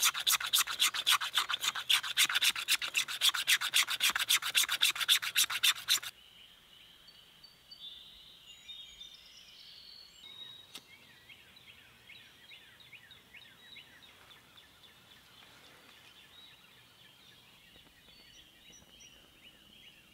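A blade scraping rapidly and evenly along a black ABS plastic tent stake, shaving off plastic curls to use as fire tinder; the scraping stops abruptly about six seconds in. After that, faint bird chirps over quiet outdoor background.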